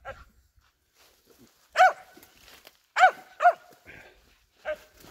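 Squirrel-hunting dog barking treed at the base of the tree, a handful of short, sharp barks about a second apart, marking a squirrel hiding in a leaf nest above.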